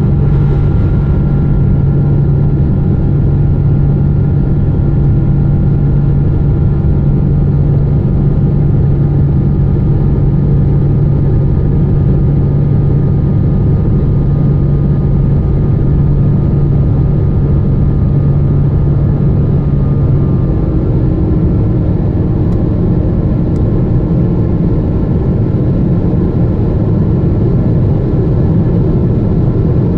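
Boeing 777-200ER cabin noise in the climb after takeoff: loud, steady engine and airflow noise under a low hum, whose note changes about twenty seconds in.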